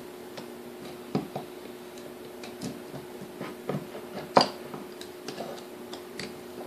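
Scattered small metallic clicks and taps of pliers and a screwdriver working a cotter pin out of the brush holder of a small electric motor, the sharpest tap about four seconds in. A faint steady hum runs underneath.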